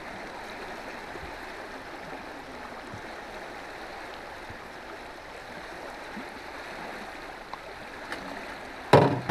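Steady rush of river water moving past a small aluminium boat's hull. A sudden loud thump near the end.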